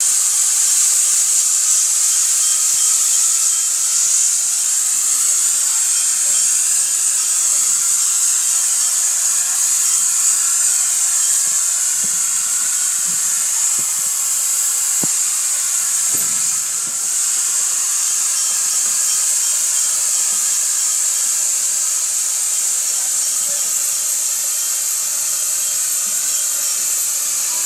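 Steady, loud hiss of steam venting from Bear Harbor #1, a small Marschutz & Cantrell 'Gypsy' logging steam locomotive, with a few faint knocks about halfway through.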